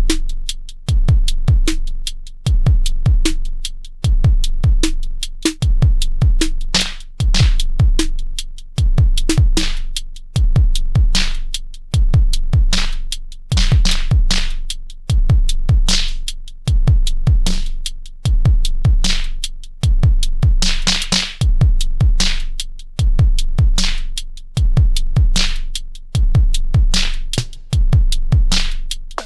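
Electronic music: a steady drum-machine beat of kick drum and sharp high ticks over a deep held bass, the loudness pulsing in an even rhythm.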